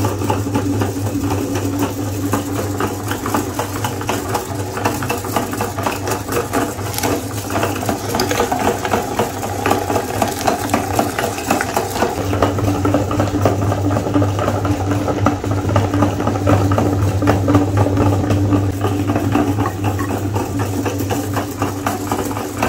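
Electric meat grinder running steadily, a motor hum over a rattling grind as coated ice cream bars are forced through the auger.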